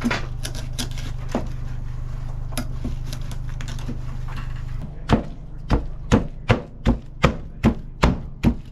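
A knife chopping smoked pork butt, starting about five seconds in as a steady run of sharp chops, about two to three a second. Before the chopping there is a steady low hum with a few scattered light clicks.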